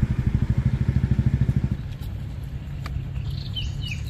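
An engine running with an even low throb, about ten beats a second, that cuts off abruptly just under two seconds in. Then a bird calls with a series of short, falling chirps near the end.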